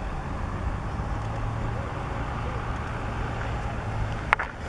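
Steady low rumble of a passenger excursion train approaching at a distance, with a sharp click near the end.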